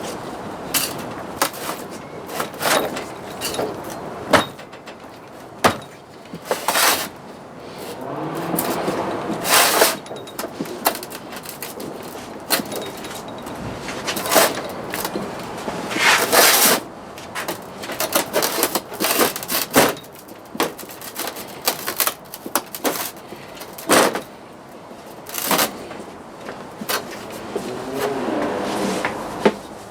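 Hand tools and metal parts clicking and knocking as a motorcycle is worked on: irregular sharp knocks and taps, several a second at times. A warbling pitched sound comes in twice, about eight seconds in and near the end.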